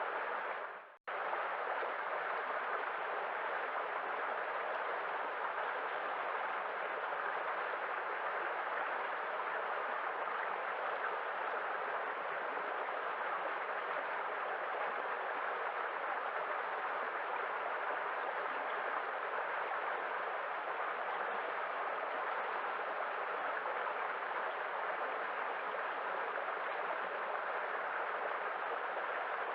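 Sea waves as a steady, even rush of water with no distinct breaks or surges. About a second in, the sound dips briefly to silence, then resumes.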